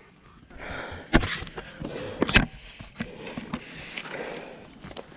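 A person breathing hard in rushes of air, with two sharp knocks, one just over a second in and the other about a second later.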